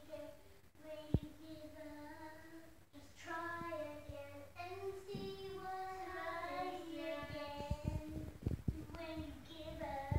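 A young girl singing a made-up, wandering tune in long held notes. A few light knocks sound under it, more often after the middle.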